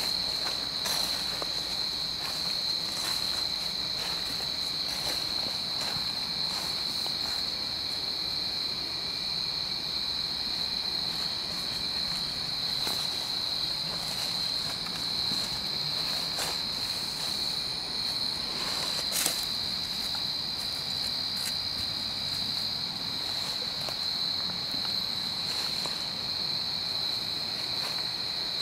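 A steady, high-pitched night chorus of crickets or katydids. Footsteps on dry leaf litter and small clicks are scattered through it, and there is one sharp click about two-thirds of the way in.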